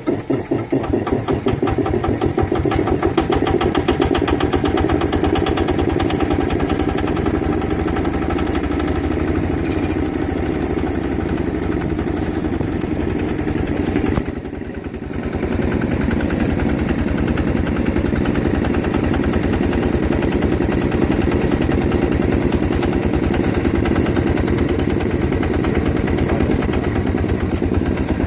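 Single-cylinder Yanmar diesel engine driving an air compressor, running with a fast, even knock. It picks up speed in the first second or two, then runs steadily, dipping briefly in loudness about halfway through.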